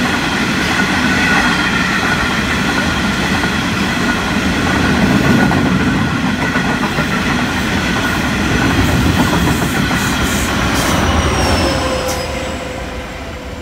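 Freight train of loaded hopper wagons rolling past close by: a loud, steady rumble of steel wheels on rail, with a high ringing wheel squeal over it. Near the end a squeal glides down in pitch and the sound falls away.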